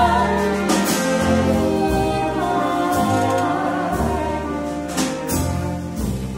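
A small theatre pit orchestra (flute, sax, strings, bass and drums) playing the closing bars of a show tune, with sustained chords and drum or cymbal strokes about once a second.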